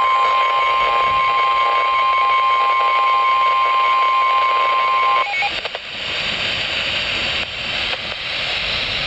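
Weather-radio warning alarm tone for an Emergency Alert System alert: a single steady high tone that cuts off suddenly about five seconds in, leaving steady radio static hiss.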